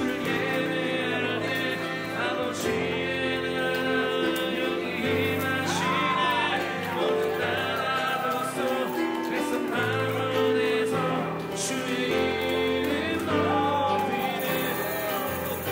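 Worship song: singing over steady instrumental backing.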